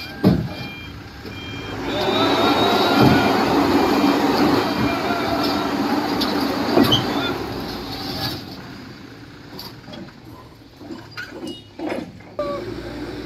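Reinforced concrete hume pipes grinding and scraping over the steel trailer deck and unloading ramps as a worker levers them along with a steel bar, loudest for several seconds in the middle with a squealing edge. There is a repeating electronic beep at the start, and scattered knocks of the bar toward the end.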